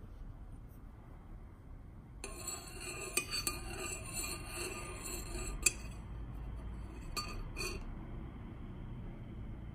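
A metal teaspoon stirring a drink in a glazed ceramic mug, ringing and scraping against the sides with a few sharper clinks, starting about two seconds in. Near the end the stirring stops, followed by a couple of separate clinks as the spoon is left resting in the mug.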